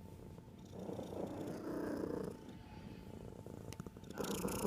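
Domestic cat purring close to the microphone with a crackly, crispy texture. The purr swells and fades with each breath, loudest about a second in and again near the end.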